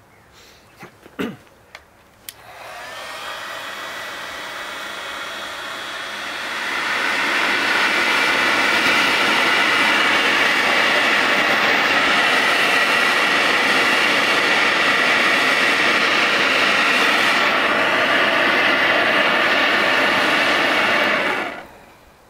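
An electric hot-air blower switched on and driving air into a burning wooden block, fanning it into a jet of flame. It makes a steady rushing blast with a faint fan whine, grows much louder about six seconds in, and cuts off suddenly near the end. A few handling clicks come just before it starts.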